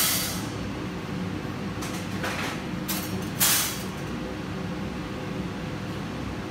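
Steady hum of a fiber laser cutting machine's equipment running, with three short hissing rushes about two to four seconds in.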